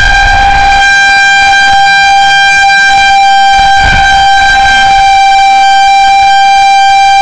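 Federal Signal 2001-130 electromechanical outdoor warning siren sounding one steady, very loud tone at full pitch, the tornado warning signal.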